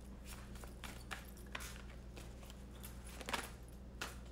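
Faint, scattered light clicks and rustles of a tarot deck being handled as a card is drawn, over a low steady hum.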